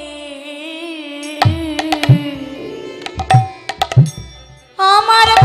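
A woman's long, held kirtan note slowly falls and fades while khol drums play a loose run of sharp strokes with deep thumps. Near the end a loud sung phrase with accompaniment comes in suddenly.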